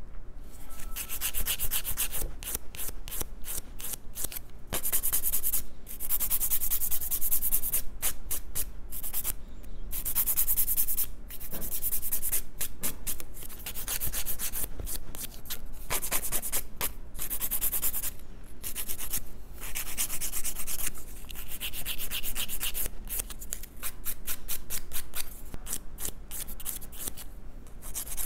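Hand nail file rasping across fingernails in quick back-and-forth strokes, in runs of a few seconds with short pauses, filing the tips down slightly and shaping them to a point.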